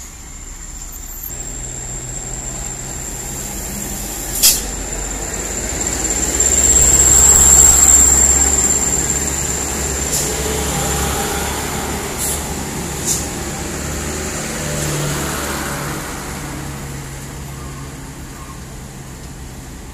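Heavy diesel trucks passing close by one after another, their engine drone building to its loudest about seven to eight seconds in, then easing off. A thin steady high whine runs over the first half, and a few short sharp clicks sound about four and a half and thirteen seconds in.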